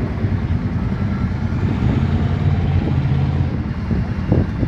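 Kawasaki Brute Force ATV's V-twin engine running steadily as the quad drives through mud, with a couple of thumps near the end.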